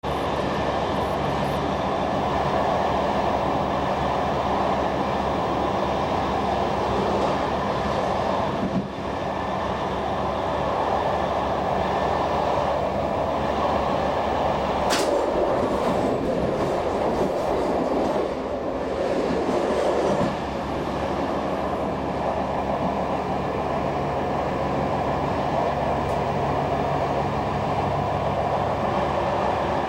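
SNCF express train running along electrified track, heard on board: a steady rumble of wheels on rail with a few constant tones, and one brief sharp high click about halfway through.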